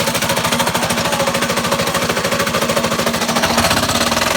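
Blown engine running with rapid, rhythmic metallic knocking: rod knock.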